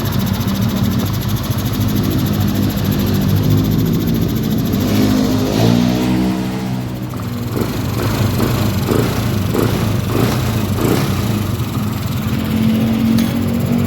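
Yamaha NMAX scooter's single-cylinder four-stroke engine running, now started again after water was cleared from the fuel tank. It idles steadily, its pitch rises about halfway through, and a run of short throttle blips follows before it settles back to idle.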